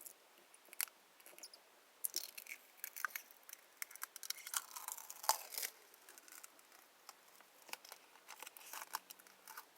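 Blue protective plastic film being picked at and peeled off a metal nail stamping plate: scattered fingernail clicks and crackling peeling, thickest in the middle.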